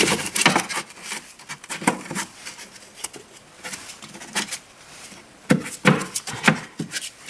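A new pleated cabin air filter being slid and pushed into its plastic housing in an Audi A4: irregular plastic clicks, scrapes and rustling as the frame is worked into place.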